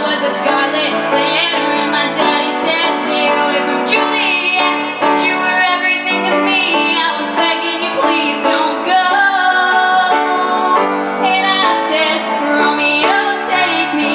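A woman singing a song live, with held notes, to piano accompaniment.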